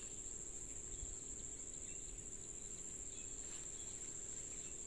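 Steady high-pitched insect chorus, a continuous shrill drone held at one pitch without a break.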